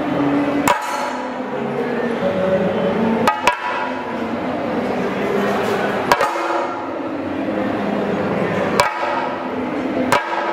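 Chenda drums in a thayambaka: loud, sharp stick strikes on the drumheads every two to three seconds, with two strokes close together about three seconds in, over a dense steady background of sound.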